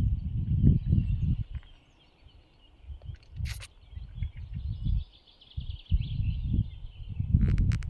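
Wind buffeting the microphone in uneven gusts, with small birds chirping steadily in the background.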